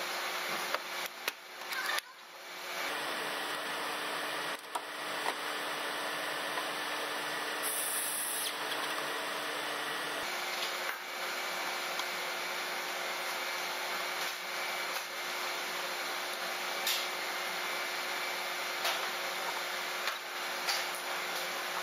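Steady workshop background noise, with scattered light clicks and knocks from parts and tools being handled.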